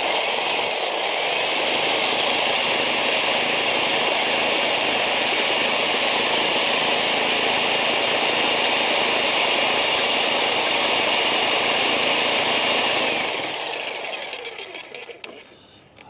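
TR Industrial TR89305 120-volt electric demolition hammer, fitted with a ground rod driver bit, running steadily for about 13 seconds and then winding down as it is switched off. It runs without hammering the rod: the striking mechanism is not engaging.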